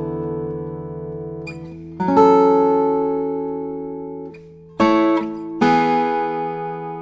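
Steel-string acoustic guitar with ebony back and sides and a sinker redwood top, played fingerstyle: ringing chords struck about two seconds in, then twice more near five seconds, each left to sustain and fade.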